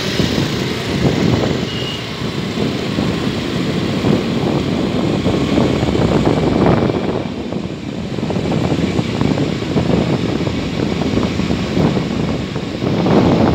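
Wind buffeting the microphone of a phone carried on a moving scooter, loud and gusting in surges, with the scooter's engine and road noise underneath.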